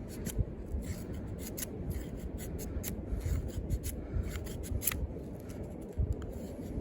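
Lengren Dragon combat knife shaving curls and bark off a stick of wood: a run of short, irregular scraping strokes.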